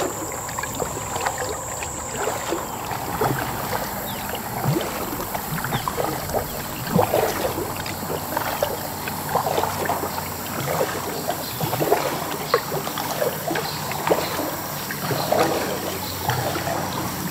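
Canoe being paddled: irregular splashes and drips from the paddle, with small knocks against the hull, over a steady low hum of highway traffic.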